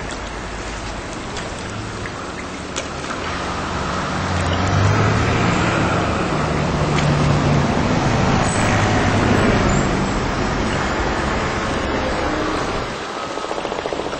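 Motor vehicle passing: a rush of engine and road noise with a low hum that swells from about four seconds in and drops away near the end.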